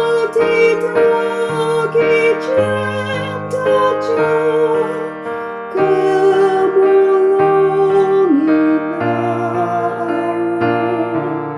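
A woman singing a song to keyboard accompaniment, holding long notes with vibrato over sustained chords.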